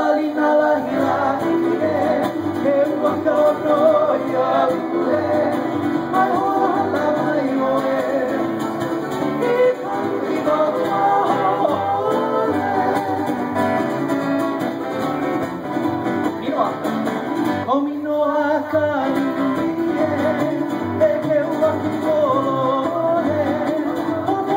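Live acoustic Hawaiian band: a singing voice over strummed guitar-type string instruments and a plucked upright bass.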